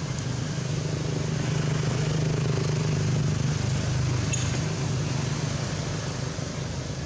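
Steady low engine hum that swells a little in the middle, with one faint clink about four seconds in.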